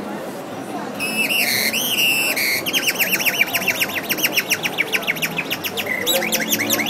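A person imitating birdsong by whistling: a short warbling phrase about a second in, then a fast run of repeated chirping notes at about eight a second.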